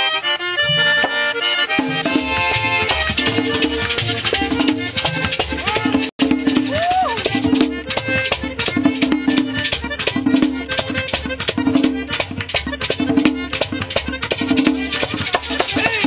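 Background music: a lively instrumental tune with a fast, even beat. It cuts out for an instant about six seconds in.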